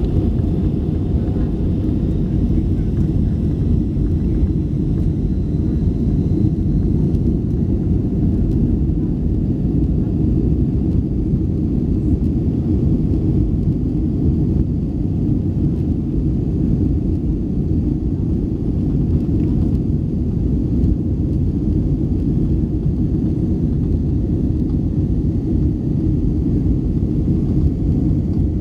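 Jet airliner's engines and rolling rumble heard from inside the passenger cabin during the takeoff run: a loud, steady, deep rumble.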